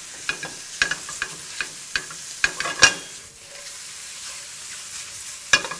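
Sliced mushrooms sizzling in oil and butter in a stainless steel skillet, with the clicks and scrapes of a utensil stirring them through the first three seconds or so and a few more clicks near the end.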